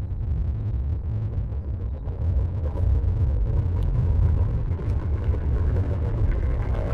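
Mike Wazowski's burp, slowed down and distorted so far that it has become one long, deep, steady rumble. It grows a little louder about three seconds in.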